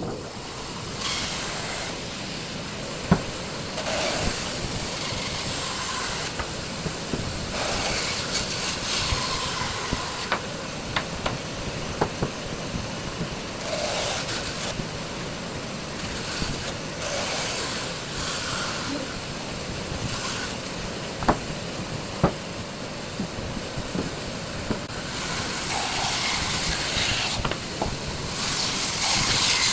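Hand tool scraping wood in uneven strokes, a steady hiss rising and falling every few seconds, with a few sharp knocks.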